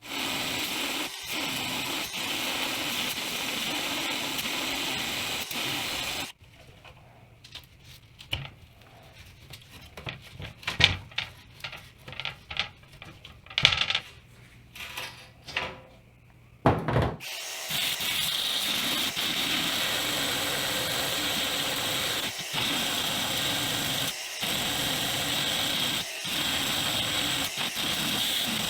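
Handheld power tool running steadily, working at seized, rusted screws in a windshield support brace. It runs for about six seconds, gives way to a stretch of scattered knocks and scrapes, then runs again with a few brief stops near the end.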